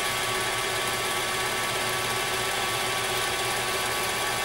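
Lathe running steadily, spinning a small diamond sharpening disk on a mandrel, an even, unchanging machine hum with a carbide cutter held lightly to the disk.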